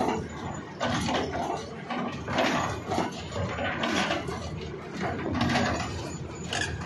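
Excavator rock ripper tearing through rock: harsh grinding and scraping as the ripper tooth breaks and drags rock, coming in uneven surges about once a second.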